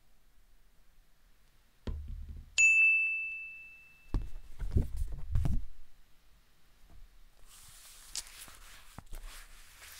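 A single bright bell ding that rings out and fades over about a second, the cartoon sound effect for an idea striking. A low thump comes just before it, and a few low thuds follow, then a soft hiss with clicks near the end.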